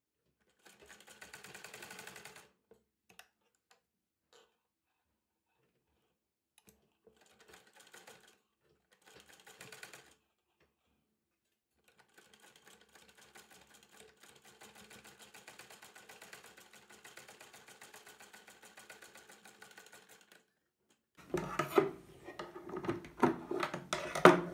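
Sewing machine stitching lace in short runs of a second or two, then one long run of about eight seconds. Near the end come louder, irregular knocks and rustling as the work is handled.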